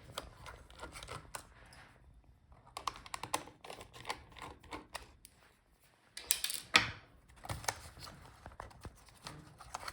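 Rapid light clicks and taps of hands and a small screwdriver working on a laptop's plastic and metal parts, with short pauses and a louder cluster of clicks about six and a half seconds in.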